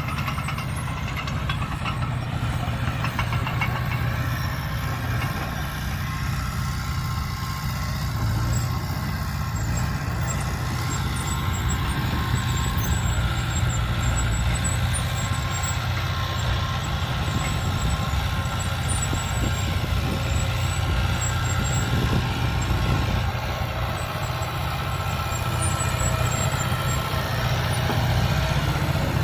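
Heavy vehicle's engine running steadily at an even, low idle-like pitch.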